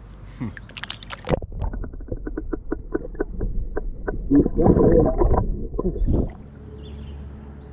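A splash as the camera plunges underwater, then muffled underwater sound: a run of quick, even ticks, then a loud stretch of gurgling and sloshing as hands release a smallmouth bass. The churning stops near the end as the camera comes back up to the surface.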